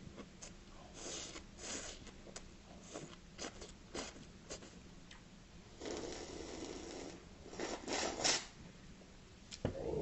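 Close-up eating sounds: chewing with small chopstick clicks, then noisy slurping and gulping from a bowl from about six seconds in, and a knock near the end as the bowl is set down on the table.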